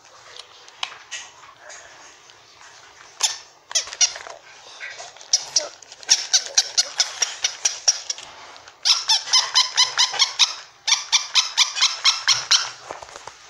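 Squeaker inside a plush toy squeaking over and over as a small dog bites at it. The squeaks come in fast runs of about five a second with short pauses between runs, after a few scattered squeaks at first.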